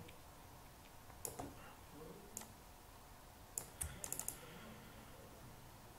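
Faint, scattered clicks from a computer keyboard and mouse: a couple of single clicks, then a quick run of clicks about four seconds in.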